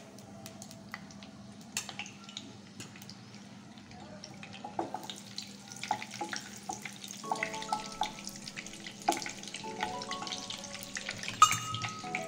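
Butter melting and sizzling in hot groundnut oil in a kadai, with scattered crackling pops that grow busier from about five seconds in, and a spatula stirring through it.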